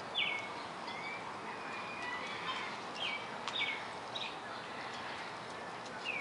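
Wild birds chirping: short calls repeated every second or so, each a quick downward slide, over steady outdoor background noise.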